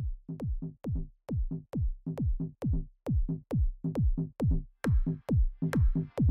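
Electronic dance background music with a drum-machine kick on every beat, a little over two beats a second; a hissing synth layer comes in near the end.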